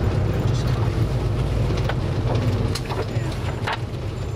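Minibus engine and road noise heard from inside the cabin while driving: a steady low drone, with a couple of light rattles a little under three seconds in and again later.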